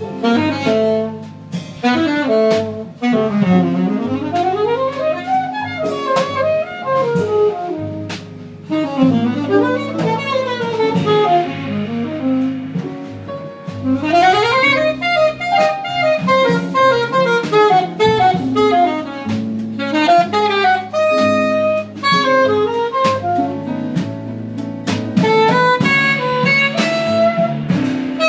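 Live jazz: an alto saxophone solos in fast runs that sweep up and down, over double bass and a drum kit with cymbals.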